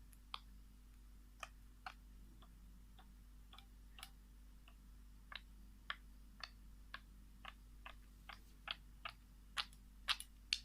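Short, sharp chip notes from a small wild animal in an irregular series. The notes come faster and louder toward the end.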